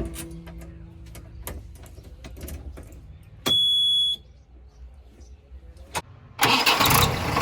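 Diesel engine of a JCB 3DX backhoe loader starting: a low hum with scattered clicks, a single high electronic beep midway, then loud engine noise breaking in about a second before the end.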